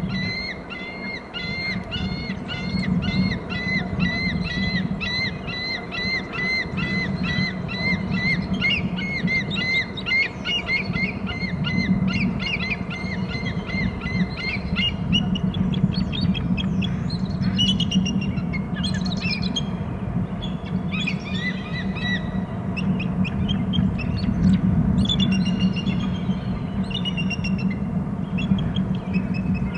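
Bald eagles giving alert calls. First a long run of evenly repeated high chirping notes, two or three a second. About halfway through the calls turn more varied and overlapping as both eagles call.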